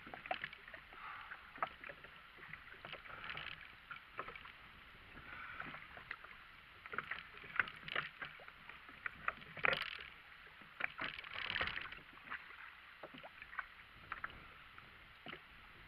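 Irregular small knocks, clicks and rustles on and around a kayak as a person and gear move about it, over a soft hiss. The loudest cluster of knocks comes about ten seconds in, with another just after.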